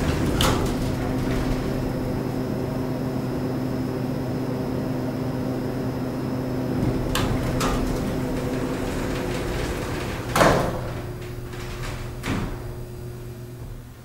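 Otis Series 5 elevator arriving at the landing: a steady machine hum runs while the car travels, then stops. Clicks follow, then the doors slide open with a knock about ten seconds in.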